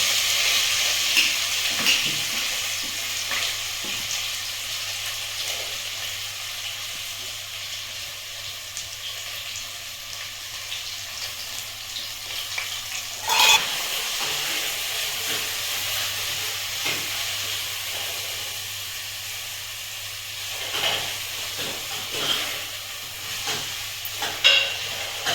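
Food sizzling in hot oil in a pan, a steady hiss, with a short louder burst of sizzle about halfway through and a few short clicks or knocks near the end.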